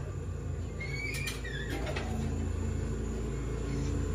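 Trade-show hall background: a steady low rumble, with a few short chirps and a faint click about a second in.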